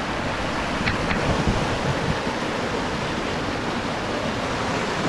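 Whitewater rapids of a rocky mountain river rushing steadily around boulders.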